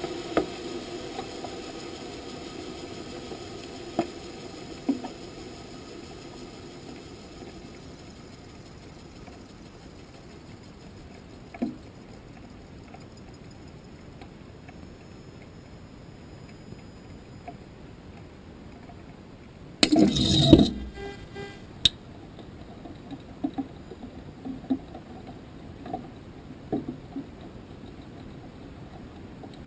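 Audio from a sounding rocket's onboard camera high in its flight: a faint hiss with scattered sharp clicks and clinks of hardware rattling inside the airframe, and a loud clattering burst lasting about a second around two-thirds of the way through.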